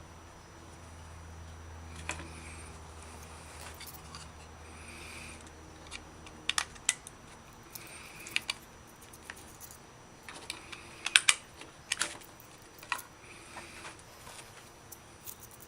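Irregular small sharp clicks and taps, some in quick clusters, loudest about eleven seconds in, over a faint low hum that fades out about seven seconds in.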